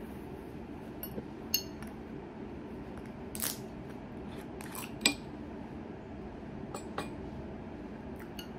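Clinks and taps of glass, with a short hiss about three and a half seconds in as the cap of a green glass bottle of sparkling water is twisted open. The loudest clink, about five seconds in, rings briefly. A steady low hum lies underneath.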